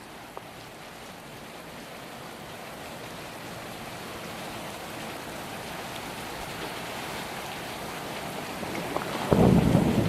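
Thunderstorm: steady rain hiss slowly growing louder. About nine seconds in, a sudden loud clap of thunder breaks in and rumbles low.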